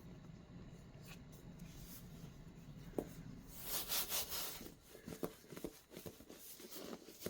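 Packaging rustling and rubbing as a drum stool seat is unpacked: a faint click about three seconds in, then a few seconds of rustling and scraping with small knocks.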